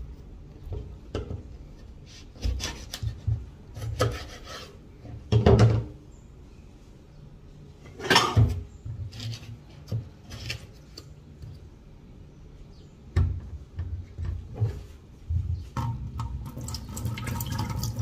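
Kitchen knife cutting green passion fruit on a wooden chopping board: irregular knocks and scrapes as the blade goes through the rind and hits the board. Near the end a kitchen tap runs steadily.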